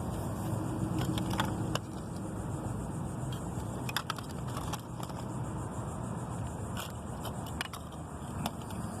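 Scattered light clicks and crackles of a plastic toy package being handled, over a steady low background rumble.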